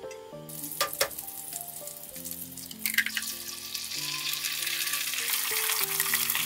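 Oil sizzling in a hot frying pan, with two sharp knocks just before a second in. Near three seconds an egg goes into the oil, and the frying sizzle then grows steadily louder, over soft background music.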